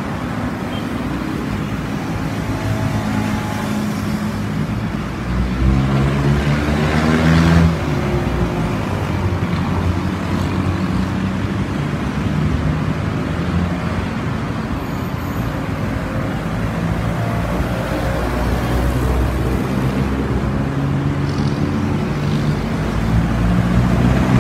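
Busy multi-lane road traffic: car and motorcycle engines running and tyres rolling in a steady hum. A louder vehicle passes about six to seven seconds in.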